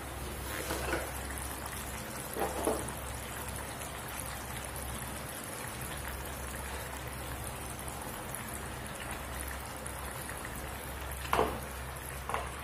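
Curry simmering in an open ceramic pot on a gas burner: a steady, soft bubbling hiss. There are a few brief knocks of the ceramic lid being handled, two early on and two near the end.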